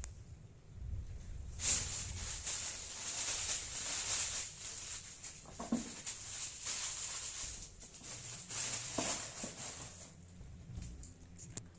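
Crinkling, rustling plastic sheeting, like the plastic covering of a bamboo kite being handled. It starts about two seconds in and dies down near ten seconds.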